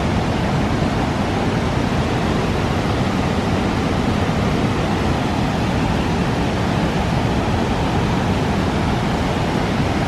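Loud, steady rushing of river water spilling over a dam, an even wash of noise with no breaks.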